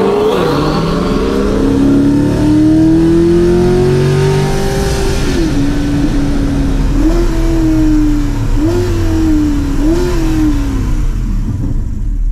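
Twin-turbo C8 Corvette V8 under hard acceleration, its pitch dropping at a gear change and then climbing steadily. About five seconds in, the revs fall away in four short blips as the dual-clutch gearbox downshifts under hard braking: the run is being aborted on a zero oil-pressure warning.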